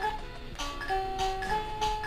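Casio VL-1 mini keyboard playing a thin, buzzy electronic melody one note at a time, over its built-in rhythm's ticking percussion.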